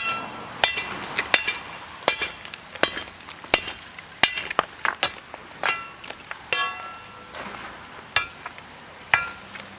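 Hand-swung hammer blows on metal while a drinking fountain is demolished by hand: about a dozen strikes, roughly one every 0.7 seconds, each with a short metallic ring.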